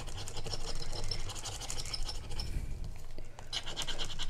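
Rapid scratching as a thin tool rubs the silver coating off a scratch-off savings-challenge card, many quick strokes. It pauses briefly about three seconds in, then resumes louder.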